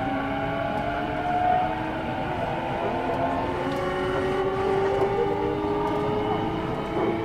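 JR East E233-6000 series electric train running, heard from inside the car: a steady electric motor and inverter whine of several tones, slowly rising in pitch as the train gathers speed, over rail and wheel noise.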